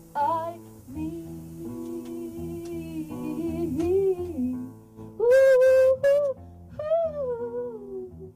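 Music: a slow guitar-backed tune with a voice humming or singing a wavering melody over it, loudest a little after the midpoint.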